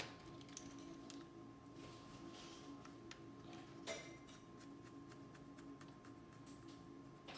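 Near silence: faint room tone with a steady low hum and a few light clicks, the clearest about four seconds in.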